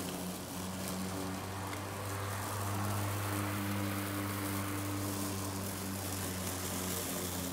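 Remote-controlled 36-volt electric lawn mower running as it drives over grass: a steady low motor hum under an even hiss.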